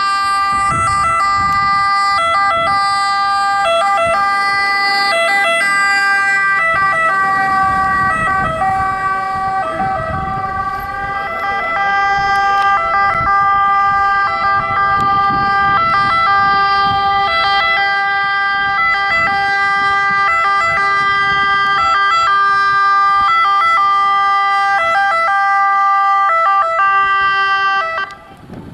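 Ambulance siren sounding continuously, a two-tone siren alternating between its notes. It cuts off abruptly near the end.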